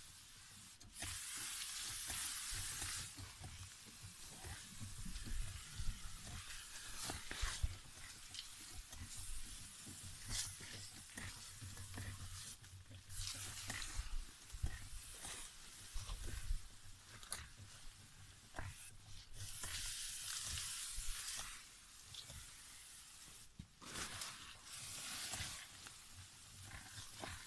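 Backpack sprayer's lance nozzle hissing out a fine mist in bursts of a second or two, several times over, with rustling and snapping of leaves and twigs in between.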